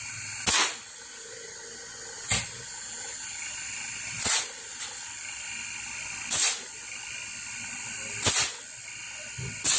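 Outdoor fan motor of a Hitachi inverter split AC running on the test bench from its repaired outdoor PCB, giving a steady hiss with a faint high whine. A sharp click repeats about every two seconds.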